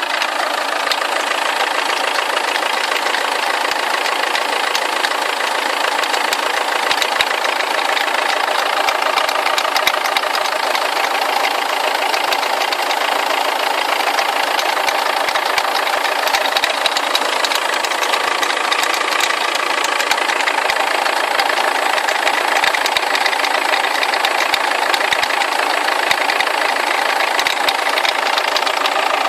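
Peugeot 2.0 HDi 110 four-cylinder turbodiesel engine idling steadily, with a fast, even diesel clatter.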